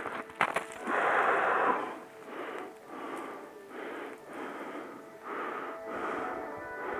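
Quick, wheezy breathing of a hiker climbing in snow, the breaths coming under a second apart. A few sharp knocks and a loud second of noise come near the start.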